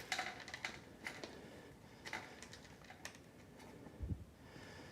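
Faint clicks and taps of hands working a computer case, taking out the side-panel case screws, with a soft low thump about four seconds in.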